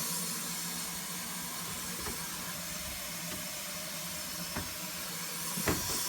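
Water running steadily from a sink faucet, an even hiss, with a few faint knocks.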